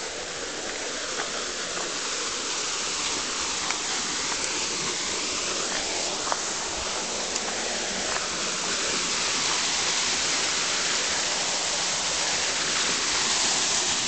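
Small waterfall rushing steadily, an even hiss of falling water that grows a little louder toward the end.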